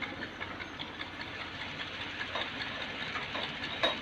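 Fiat 480 tractor's diesel engine running steadily, with a sharp knock near the end.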